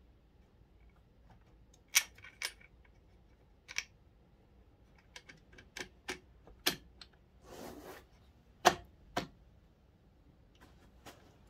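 Scattered light clicks and taps of fingers and small metal parts against a pit bike's open aluminium engine casing as the old gasket is picked off, with a short scrape about two-thirds of the way in.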